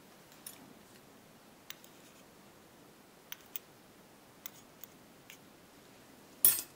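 Light, sparse metal clicks of tweezers touching small lock pins in a brass pinning tray, then a short, louder crinkle of a clear plastic bag being handled near the end.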